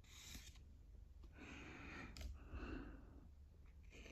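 Near silence: room tone with a few faint soft rustles and one faint click about two seconds in.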